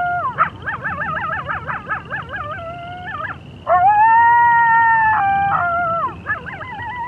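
Grey wolves howling in chorus: several wavering, yipping voices overlap, then about three and a half seconds in one long steady howl that falls away at its end, followed by more wavering calls.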